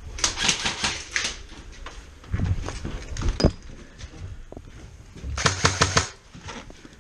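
Airsoft guns firing in short bursts of rapid, sharp clicking shots, three bursts about two seconds apart.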